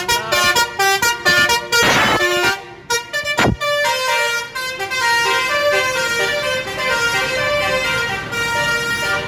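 Multi-tone 'telolet' musical bus horn playing a song melody, stepping from note to note, loud. There is a short noisy blast about two seconds in.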